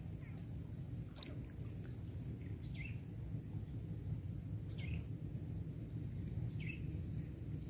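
Faint open-air ambience: a low steady rumble, with a bird giving a short falling chirp every couple of seconds, a few times over.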